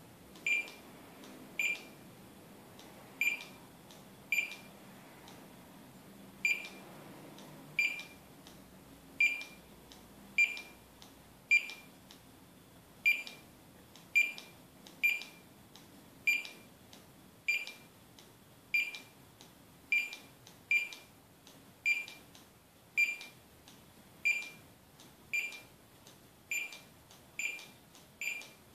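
Handheld barcode scanner beeping once for each code it reads off the battery modules. About two dozen short, high beeps come roughly one a second, a little faster toward the end.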